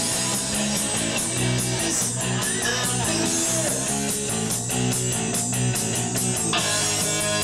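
A rock song with drums and strummed electric guitar, played back loud over the studio control-room monitors.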